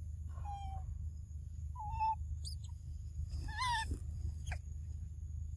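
Young macaque giving short whimpering coo calls three times, each about half a second long, the last one wavering in pitch.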